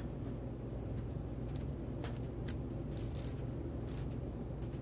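Faint, irregular small metallic clicks as a key winds a verge fusee pocket-watch movement, over a steady low hum.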